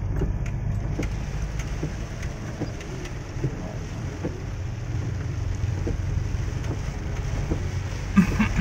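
A vehicle travelling in the rain: a steady low rumble of engine and road, with rain falling and scattered faint taps of drops.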